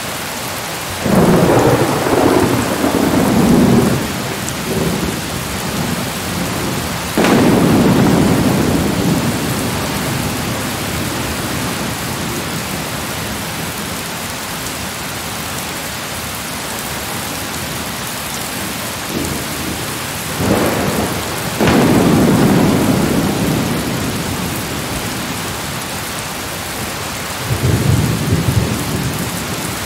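Steady rain with rumbles of thunder: four long, low rolls of a few seconds each over the constant hiss of the rain.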